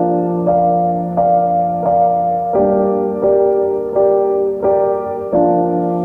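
Background piano music: sustained keyboard chords struck in a steady pulse, about one every 0.7 seconds.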